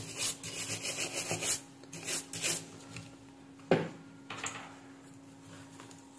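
Toothbrush bristles scrubbing a dusty switch-mode power-supply circuit board in a run of quick strokes for about two and a half seconds, then a single sharp knock a little past the middle.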